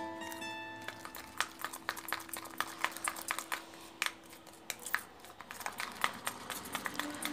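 A spoon stirring a thick face-pack paste in a small bowl, knocking and scraping against the sides in irregular clicks.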